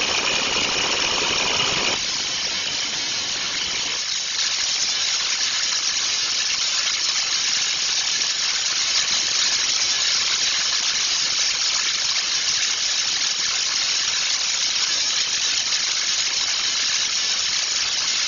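Minting machinery running briefly, then a steady, dense metallic rattle of a mass of freshly minted copper coins tumbling and jingling together in a metal bin.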